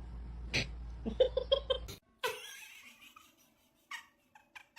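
A person laughing in four quick bursts over a low steady hum; then, after a cut, a short burst and a run of short repeated sounds about three a second.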